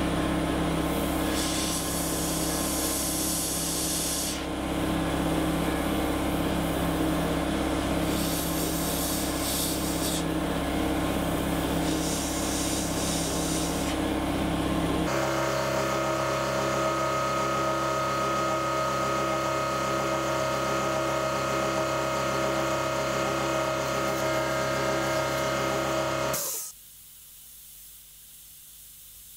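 Air compressor motor running steadily, with three short bursts of airbrush spray hiss over it. The motor cuts off suddenly near the end, leaving a faint hiss.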